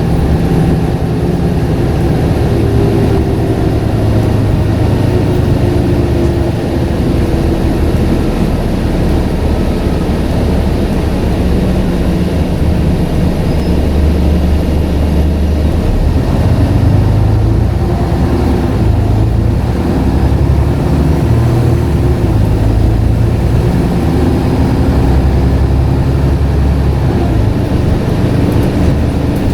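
Scania N94UD double-decker bus's diesel engine running under way, its note rising and falling as the bus drives, over steady road noise.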